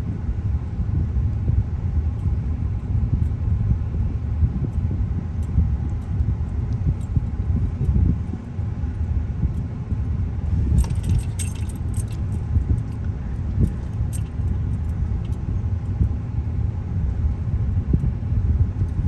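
Car cabin road noise: a steady low rumble of the vehicle creeping through stop-and-go traffic. About eleven seconds in, a brief cluster of light clicks and rattles.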